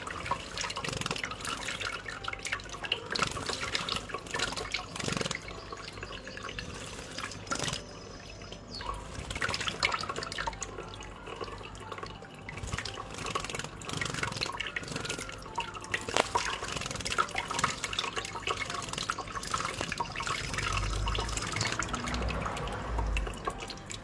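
A thin stream of tap water running into cupped wet hands while a European goldfinch bathes in them, splashing and flicking water with its wings: a continuous patter of drips and small splashes. A few low bumps come near the end.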